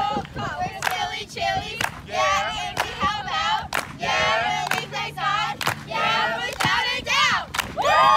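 A group of girls chanting and singing a clap-along camp roll-call cheer, with a hand clap about once a second. The cheer ends in a long, high group shout near the end.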